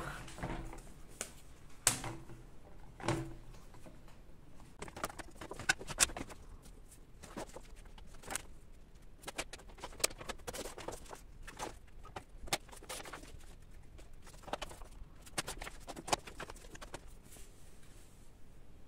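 Wooden picture frames and sheets of paper being handled on a wooden table: a few knocks of frames set down near the start, then a scattered run of clicks, taps and paper rustling.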